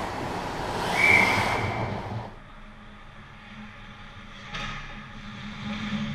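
Ice hockey referee's whistle, one short steady blast about a second in, over the scraping of skates and sticks in an ice rink. Afterwards the rink is quieter, with a low hum and a brief scrape about four and a half seconds in.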